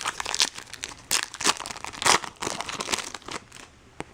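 Foil trading-card pack wrapper crinkling and tearing as it is handled and ripped open, in a quick, irregular run of crackles that stops shortly before the end.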